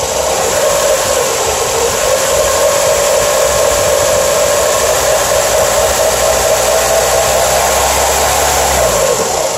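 2002 Chrysler PT Cruiser four-cylinder engine idling with its electric radiator fan running, an even rushing hiss over a steady whine and a low hum that sag and fade about nine seconds in. The owner has a little noise from this side of the engine that began after a timing-belt job, and he can't tell whether it is a noisy timing belt or one of the idler pulleys.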